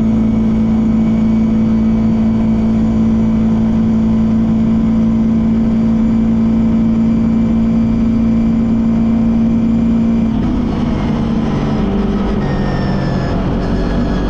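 CFMoto CForce 450S ATV's single-cylinder engine running at a steady cruising speed under the rider. About ten seconds in the throttle eases: the engine note drops and turns rougher.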